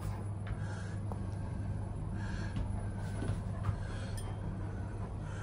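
Great Pyrenees dog panting, with soft breaths about once a second, over the steady low hum of an elevator car rising.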